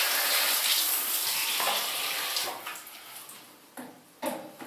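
Handheld shower spray running water onto a wet dog's coat, a steady hiss that fades out about halfway through. Two short sharp sounds follow near the end.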